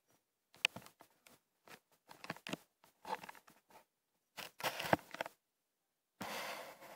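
Irregular short rustles and small clicks from a camera worn by a cat, rubbing and knocking as the cat moves, with a longer rustle near the end.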